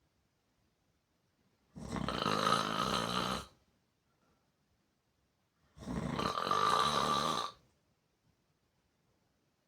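A person snoring loud and hard with the mouth open: two long, rasping snores about four seconds apart, each lasting nearly two seconds, with quiet breathing gaps between.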